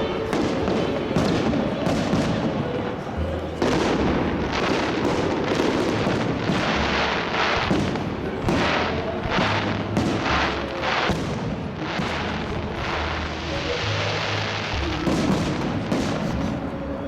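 Aerial fireworks display: shells bursting in quick, overlapping succession, a continuous run of bangs and booms.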